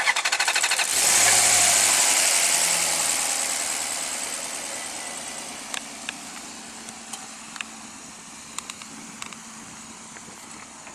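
2007 Maserati Quattroporte's 4.2-litre Ferrari-built V8 being started: the starter cranks for about a second, the engine catches and flares to a high idle, then slowly settles toward a steady idle over the next several seconds.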